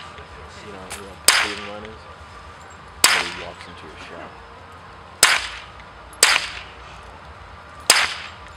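Suppressed handgun fired five times at uneven intervals, one to two seconds apart; each shot is a sharp crack with a short echo trailing off.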